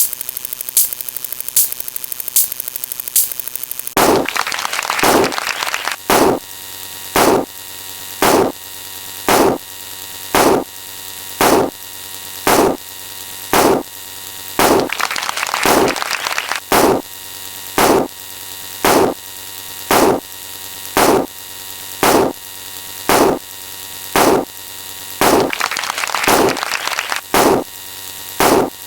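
An electronic sound effect: a steady buzzing hum with regular sharp pulses. About four seconds in, the pulses switch to a louder, fuller beat of about one a second.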